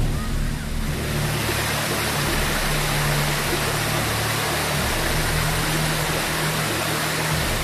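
Rushing water of a stream or waterfall, a steady hiss that swells in about a second in, over low background music.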